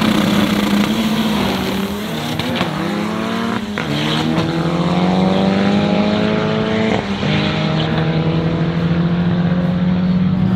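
Drag-racing pickup's engine under full throttle down the strip, its pitch climbing in each gear and dropping at three gear changes, about two and a half, four and seven seconds in, on a quarter-mile run of 11.7 seconds.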